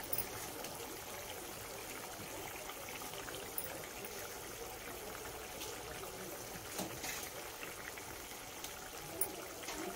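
Masala curry gravy boiling steadily in a kadhai, with a few brief splashes as pieces of set egg are dropped into it.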